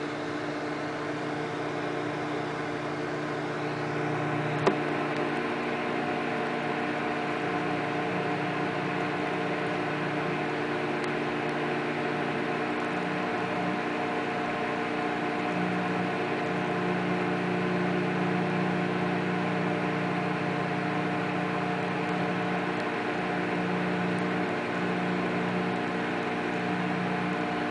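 Microwave oven running with a steady hum made of several held tones, its lowest tone wavering from about halfway through. A single sharp click about five seconds in.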